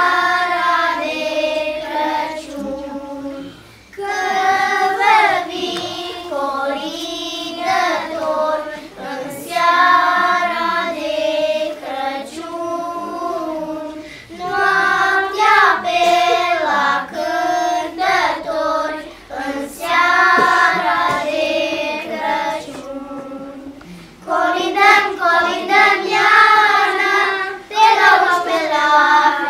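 Children's choir singing a Romanian Christmas carol (colindă) together. It goes in phrases, with a short break about every ten seconds.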